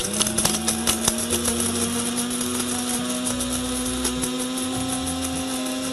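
Cuisinart SG-10 electric spice-and-nut grinder starting up and running steadily, its stainless steel blade whirring as it grinds cinnamon sticks. Pieces of cinnamon rattle and crack against the bowl, many at first and fewer after the first couple of seconds as they break down.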